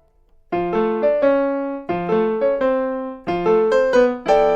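Piano playing a cumbia accompaniment, with chords struck in a quick repeating rhythm, starting about half a second in.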